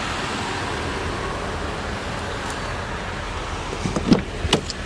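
Steady running noise of the 2009 Chevy Malibu LTZ's V6 engine idling. A few clicks and knocks come about four seconds in, the loudest a sharp knock.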